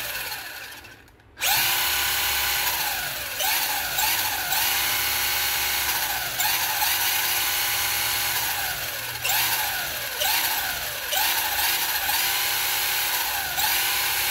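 Brushed electric motor and drivetrain of a 1/16-scale RC truggy running with its wheels spinning in the air, making a high whine. The whine drops away briefly about a second in, then surges up and down in pitch again and again as the throttle is worked.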